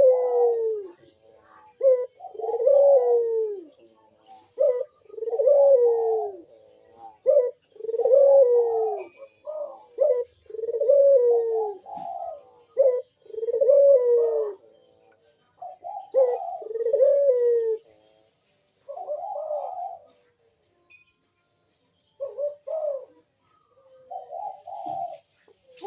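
Barbary dove (puter) cooing over and over: deep, falling coo phrases about every one and a half to two seconds, coming more sparsely with longer gaps near the end.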